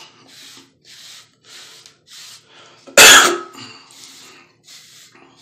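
Hard-bristle curved wave brush swept over short hair, a soft scratchy swish about twice a second. About three seconds in, one short loud cough.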